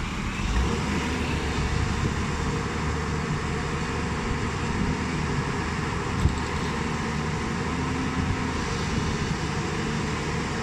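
JCB JS205 tracked excavator's diesel engine running steadily while it moves its boom and bucket, with one sharp knock about six seconds in.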